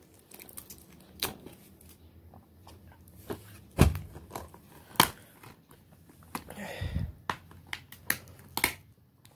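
Plastic DVD cases being handled on a bed sheet: scattered sharp clicks and taps with soft rustling. The loudest knock, with a dull thud, comes about four seconds in, and a longer rustle with a thump follows near seven seconds.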